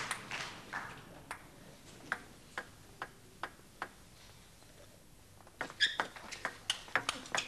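A table tennis ball bounced a few times before a serve, about two clicks a second, then a quick rally of the ball clicking off bats and table from about halfway through.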